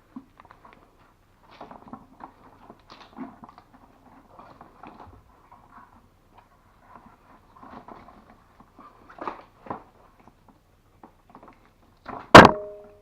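Faint scattered clicks and rustles of copper cable being handled and worked through a wire-stripping tool, then near the end one loud metallic clank that rings briefly.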